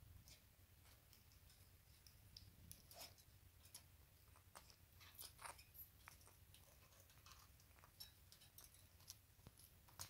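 Faint, scattered clicks and small crunching ticks of a rose-ringed (Indian ringneck) parakeet nibbling at the wire bars of a cage top, over a low steady hum.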